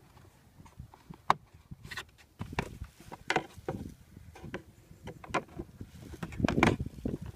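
Hands clicking, knocking and rubbing against the plastic dashboard trim and fittings under a Kia Ceed's glovebox. There is a sharp click about a second in, a run of knocks in the middle, and a louder knock with rustling near the end.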